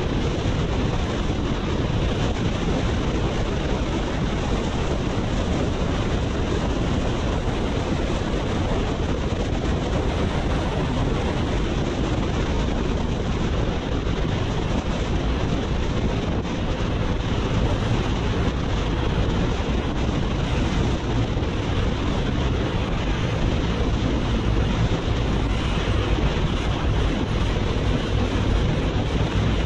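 Steady wind rush on the microphone at freeway speed, with the BMW R nineT's boxer-twin engine running underneath.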